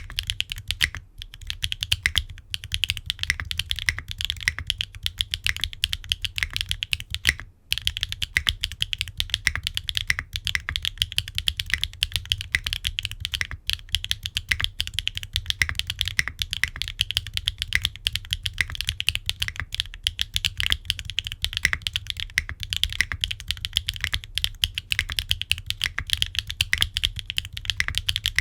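Fast, continuous typing on a gasket-mount aluminum keyboard with HMX Yogrut S linear switches, an aluminum plate, no foam and ABS double-shot Cherry-profile keycaps: a dense run of keystroke clacks broken by a few brief pauses.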